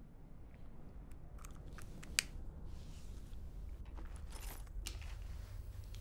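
Close, quiet mouth sounds of lips pressing and parting over fresh lipstick: a few small wet clicks, the last and sharpest about two seconds in, over a low steady rumble. A short rustle follows near the end.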